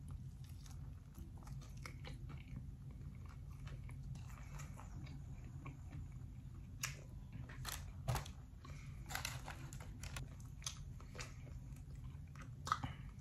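A person chewing crispy fried chicken wings, with short crunches that come thicker in the second half.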